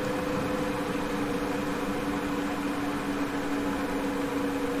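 Steady electrical hum with two constant tones over a fan-like hiss, from a Victron Multiplus-II inverter/charger running.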